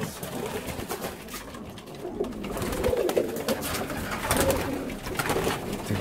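Tippler pigeons cooing, the coos swelling and fading in low rolling phrases, with a few sharp clicks in between.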